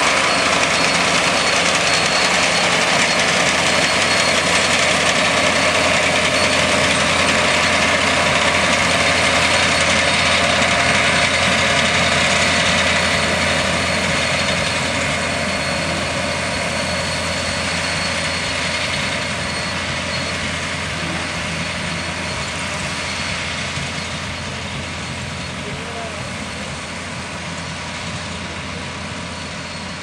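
Kubota KAR90 combine harvester running steadily while harvesting rice, a continuous engine and machinery drone. It is loudest at first and grows gradually fainter from about halfway through as the machine moves away.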